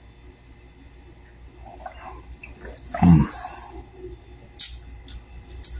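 A man drinking juice from a carton, then about three seconds in a loud, breathy "ahh" that falls in pitch after the swig, and a short smack a moment later.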